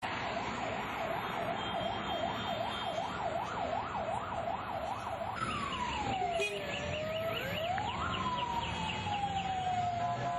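Emergency vehicle siren: a fast warbling yelp, about three sweeps a second, that switches about five seconds in to a slow wail, falling and rising in pitch. Steady street traffic noise runs underneath.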